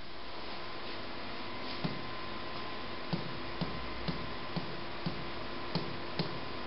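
A series of light taps or clicks, about nine in all, coming roughly twice a second over the steady hum of a small room.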